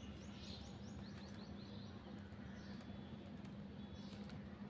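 A quiet room with a steady low electrical hum and the faint scratch of a ballpoint pen writing on notebook paper. A few faint, high, quick chirps come in the first second or so.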